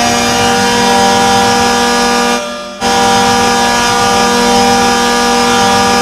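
Hockey goal horn: a loud, steady air-horn blast, broken by a short gap about two and a half seconds in, then sounding again.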